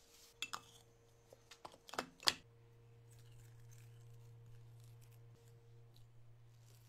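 A few sharp clinks of a spoon against glass and ceramic bowls, the loudest two coming close together about two seconds in, followed by a faint steady low hum.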